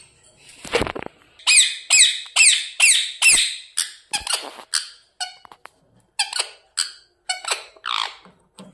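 Pet parrot giving a run of short, harsh squawks, each falling in pitch, fast at first and then more spaced out: the bird's angry calls. A single thump about a second in.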